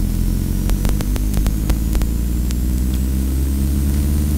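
Steady low drone of a vehicle's engine and road noise, with scattered crackling clicks.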